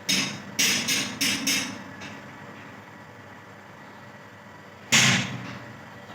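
A woman sniffing and breathing sharply through her nose as grass tickles it to bring on a sneeze: five quick sniffs in the first couple of seconds, then one louder breath about five seconds in.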